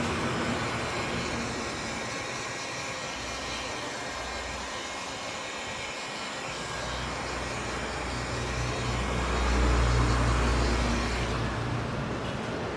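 Electric heat gun blowing steadily as it heats clear headlight film to soften it for shaping. A deep rumble swells in about eight seconds in and fades again near the end, where the blower's hiss also drops away.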